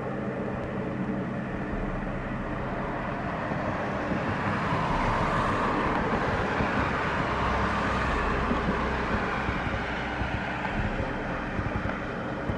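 Royal Navy Sea King Mk7 helicopter flying past, its rotors and twin turboshaft engines making a steady drone that swells in the middle and eases toward the end.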